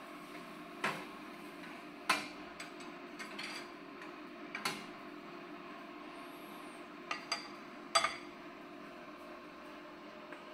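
Stainless-steel grill grate and its detachable handle on a Klarstein Steakreaktor infrared grill clanking and clattering as the tray is slid into its rack and the handle set down. There are about eight sharp metal knocks, the loudest about eight seconds in, over a steady hum.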